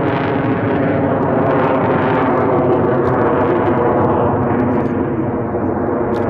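Lockheed Martin F-35 Lightning II's single Pratt & Whitney F135 afterburning turbofan running loud and steady, a dense jet roar with a rough buzzing tone in it.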